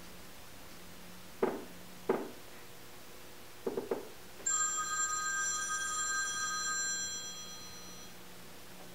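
A telephone rings for about three seconds, starting about halfway in and fading away near the end. Before it come a few soft thuds of footsteps on the stairs.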